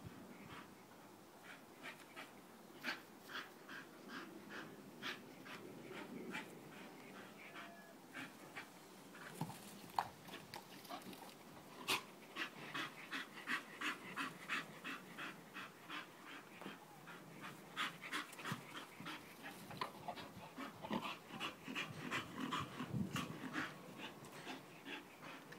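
Bull terrier panting in quick, rhythmic breaths, with a sharp click about ten seconds in.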